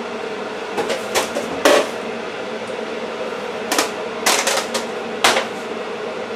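Electric kettle heating water with a steady rushing sound, broken by about seven light knocks and taps as the snack pots are handled and set down on the counter.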